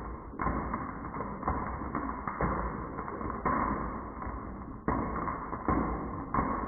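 Marbles rolling and clattering down a wooden marble run, with a rumble broken by irregular sudden knocks every half second to a second.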